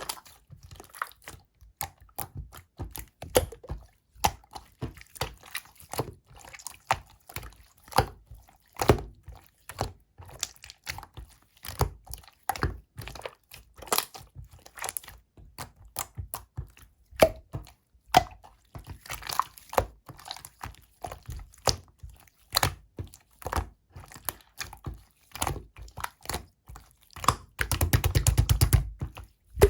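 Clear, slightly runny slime being squished and pressed by hand: a steady run of sharp wet clicks and pops, with a dense, fast rattle of pops near the end.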